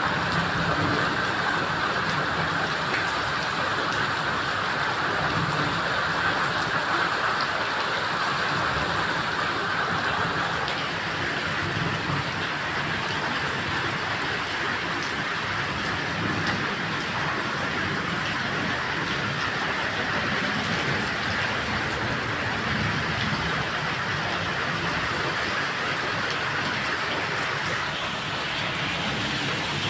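Heavy rain falling steadily, a dense unbroken hiss of drops on surfaces.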